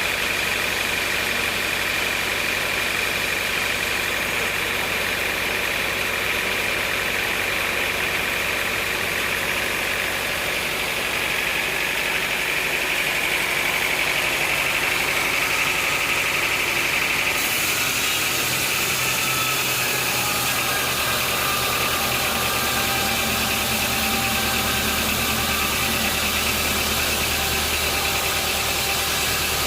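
Sawmill machinery running steadily, an engine-driven saw with a continuous high whine over a low hum. The low hum changes about two-thirds of the way through.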